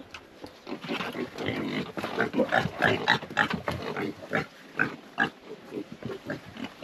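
Pigs grunting, a rapid series of short calls, busiest and loudest in the middle.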